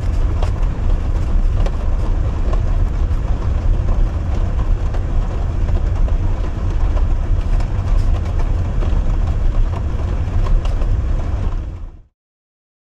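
Heavy rain drumming steadily on a camper van, a dense hiss with scattered drop ticks over a deep rumble, cutting off suddenly near the end.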